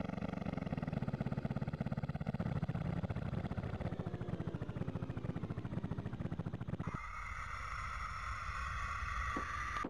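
Sampled cartoon aircraft engine sound: a deep droning engine with a rapid rotor chop. About seven seconds in it switches abruptly to a high turbine whine.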